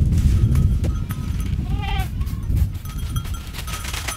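A goat bleats once about two seconds in, a single wavering call. Under it runs a heavy low rumble of wind and handling noise on the microphone while it is on the move.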